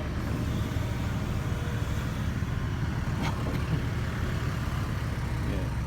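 An engine running steadily at a constant low hum, with one faint knock about three seconds in.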